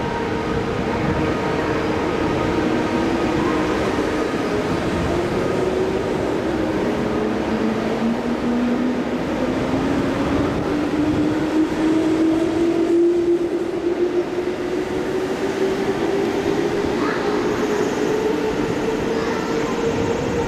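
A JR 211 series electric multiple unit pulls out and accelerates past, its traction motor and gear whine rising slowly in pitch over a steady rumble of wheels on the rails.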